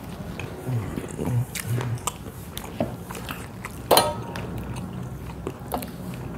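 Close-miked eating sounds: chewing and wet mouth smacks of buckwheat dhido eaten by hand. About four seconds in, one sharp metallic clink as a small brass bowl knocks against the brass plate while it is tipped.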